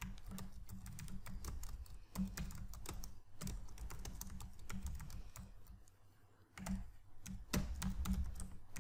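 Typing on a computer keyboard: a fast run of keystrokes, pausing briefly about six seconds in before the typing resumes.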